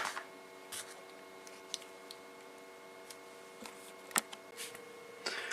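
A few sharp, scattered clicks and taps from small hard objects being handled, the loudest right at the start and about four seconds in, over a faint steady hum.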